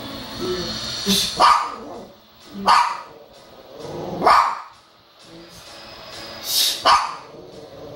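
Small dog barking, about six short sharp barks, some in quick pairs, a second or two apart.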